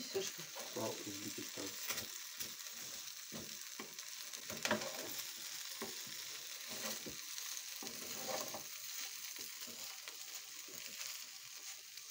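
Pelmeni sizzling steadily in a frying pan while a wooden spatula stirs them, with irregular scrapes and knocks against the pan, the loudest near the middle.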